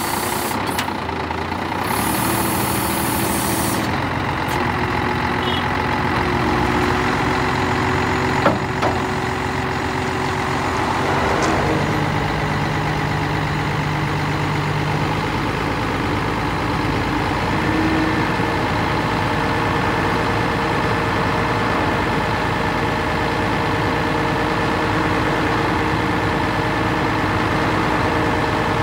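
Scania 124G 420 hooklift truck's engine running steadily while the hydraulic hook arm swings out and up, with a steady whine over it. A short hiss comes about two seconds in.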